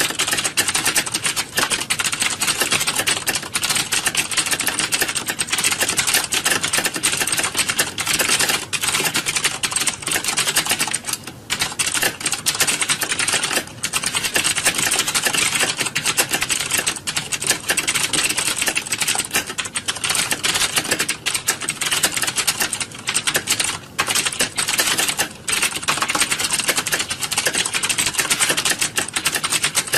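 Many computer keyboards being typed on at once: a dense, continuous clatter of overlapping keystrokes, with a few brief lulls.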